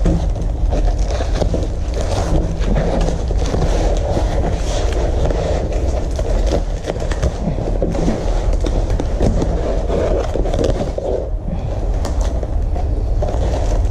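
Plastic foam wrapping rustling and crinkling as it is pulled off a long rolled parcel, with the roll rubbing against a tabletop, a steady low handling noise throughout.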